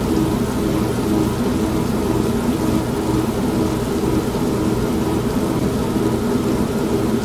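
An old manual washing machine running with a steady low hum, mixed with continuous rain.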